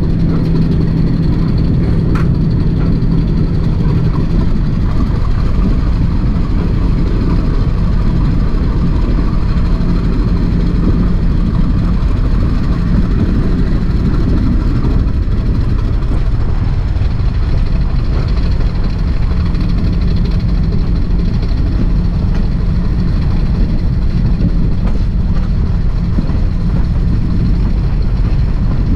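Heavy railway locomotive running steadily: a loud, constant low drone with a steady hum.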